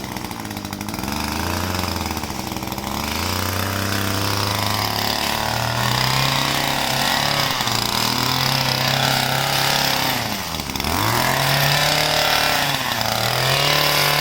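Small gas engine of a handheld cutting tool running and revving up and down, with a sharp dip and recovery about ten seconds in.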